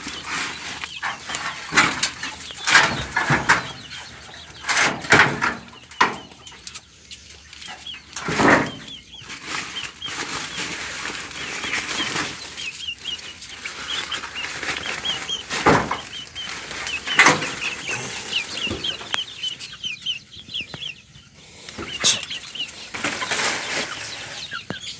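Chickens clucking, with many short high chirps, amid loud rustling and knocking as plastic sacks are moved about.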